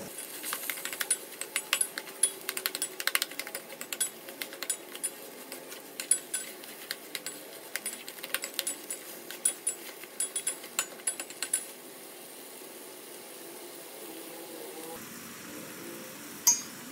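A metal spoon clinking and scraping against a stainless steel pot as a thick vegetable-and-coconut mix is stirred, in quick irregular clicks for about twelve seconds. After that only faint background noise, with one more clink near the end.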